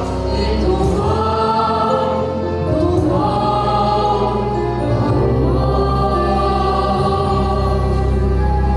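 Music: a choir singing long held chords over a steady bass, the chord shifting every couple of seconds.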